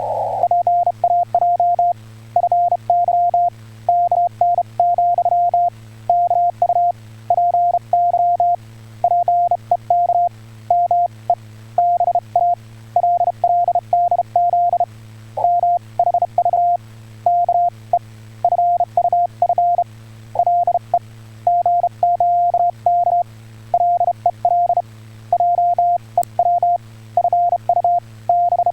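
Amateur radio Morse code (CW): a single steady beep keyed on and off in a continuous run of dots and dashes, with a low steady hum underneath.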